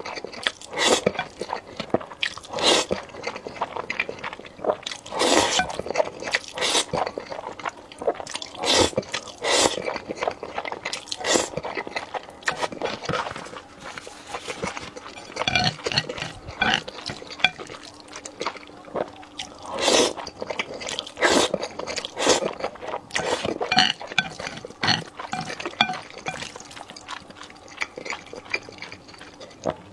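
Close-miked eating sounds of sauce-coated noodles: repeated wet slurps and chewing in irregular bursts, with a quieter stretch about halfway through.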